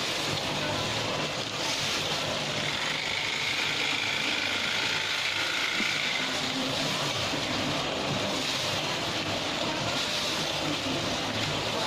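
Granulated-sugar packing machine running, a steady mechanical noise from its moving mechanism.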